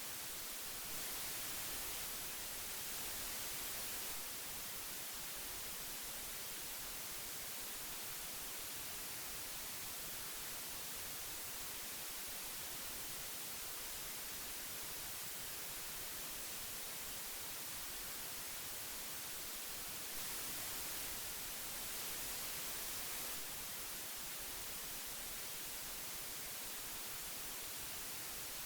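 Steady hiss of old magnetic audio tape, an even high-pitched noise that swells slightly louder twice for a few seconds.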